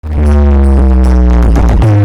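Loud electronic dance music that starts abruptly: a heavy, held synth bass note whose pitch slides down to a new note near the end.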